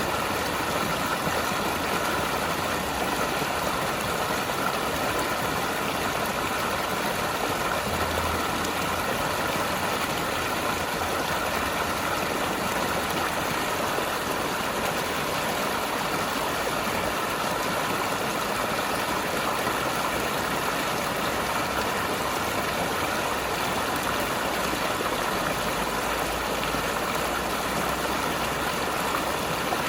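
Mountain river rushing and gurgling over rocks, a steady, even wash of water.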